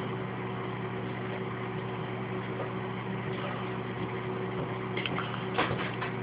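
Steady low machine hum with a few faint clicks near the end.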